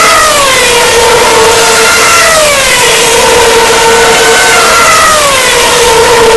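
Formula 1 cars' 2.4-litre V8 engines running loud at high revs. Each car's note glides down in pitch as it goes by, about three times, over a steady engine tone.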